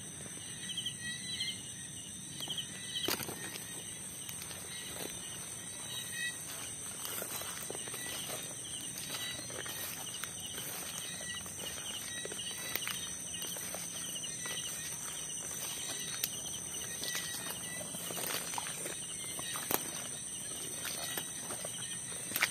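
Steady high-pitched drone of night insects in a rice field, with rapid pulsed chirping trills through the first several seconds. Scattered soft footsteps and rustles through grass.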